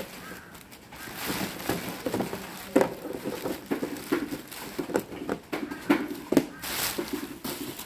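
Irregular clicks, knocks and plastic crinkling from hands handling bags and utensils at a wooden table during food preparation; the sharpest knock comes a little under 3 seconds in.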